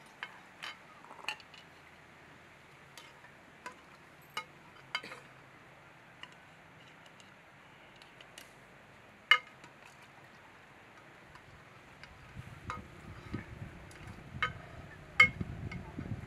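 Metal spoon stirring in a small pot and clinking against steel pots, bowls and lids: scattered ringing clinks, the loudest about nine seconds in and near the end. A low rumble joins in during the last few seconds.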